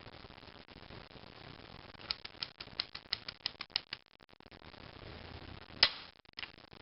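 Marksman 1010c air pistol being handled: a run of about a dozen quick mechanical clicks, then one sharp, much louder snap near the end followed by a smaller click.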